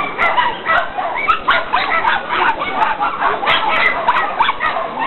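Several hunting dogs barking and yelping at once, short overlapping barks coming several times a second.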